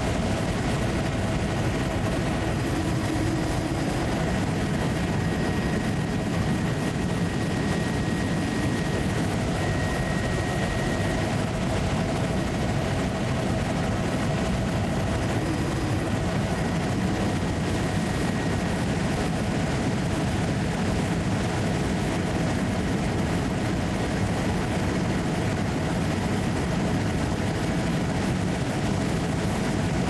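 Steady, unbroken drone of the survey aircraft's engine heard from on board, a low rumble with a constant hum and a faint high whine above it.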